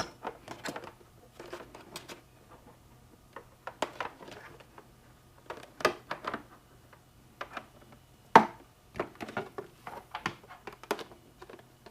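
Scattered light taps and clicks of hands handling and pressing a plastic LED light housing onto a motorcycle's painted trunk panel, with one sharper click a little past eight seconds in, over a faint steady hum.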